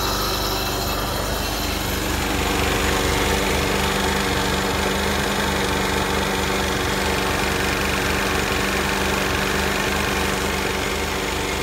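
Sea-Doo jet ski engine idling steadily out of the water, fed cooling water from a garden hose on its flush fitting during a leak test of a newly replaced exhaust manifold.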